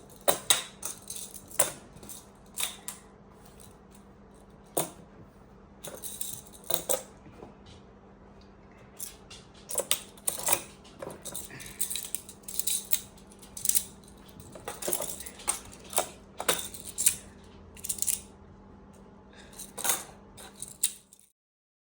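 Small 1-inch magnetic building cubes clicking and clacking against one another as they are handled and snapped together, in irregular sharp clicks. The sound cuts off suddenly near the end.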